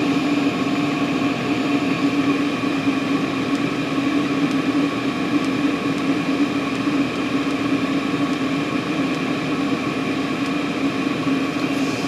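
Diesel air heater running steadily at high output, its combustion-air blower and burner giving an even whirring hum with a constant low drone. It is being over-fuelled, rich enough to make soot and black smoke.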